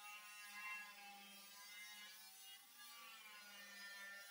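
Corded angle grinder with a thin cutoff wheel cutting through the sheet-steel side of a pickup bed. Its motor whine sags in pitch and recovers as the wheel bites and frees up, once near the start and again about three seconds in.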